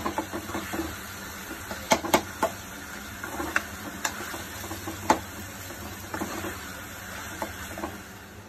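Onions and tomatoes sautéing in an aluminium kadai, stirred and scraped with a metal slotted spoon: a steady sizzle of frying with a few sharp clinks of the spoon against the pan.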